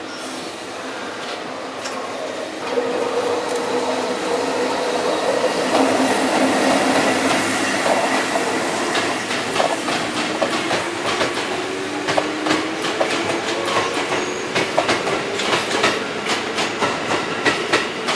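A JR EF65 electric locomotive hauling a rake of yellow Seibu electric railcars past the station. The steel wheels click over the rail joints, the clicks coming thicker and more regular as the cars roll by.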